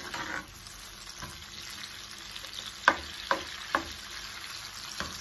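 Onion and bell pepper pieces sizzling in oil in a non-stick pan over high heat, stirred with a spatula. The spatula knocks sharply against the pan three times in quick succession past the middle and once more near the end.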